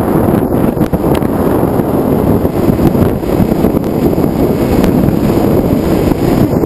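Steady, loud wind rushing and buffeting over the microphone of a camera mounted on a radio-controlled model plane in flight.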